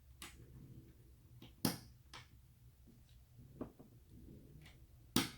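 LEGO tiles being pressed onto plates: about five sharp plastic clicks, the loudest about one and a half seconds in and near the end.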